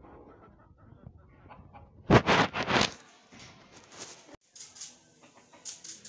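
Chickens and a rooster in a yard, with a loud burst of sharp flurrying noise about two seconds in. Near the end, a stiff brush starts scrubbing a clay pot in quick, regular strokes.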